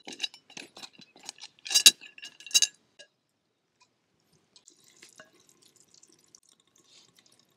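Metal clicks and clinks of a stovetop pressure cooker's lid being unlocked and lifted off, with two loud ringing metal clanks about two seconds in. Then faint scrapes as the stew in the pot is stirred.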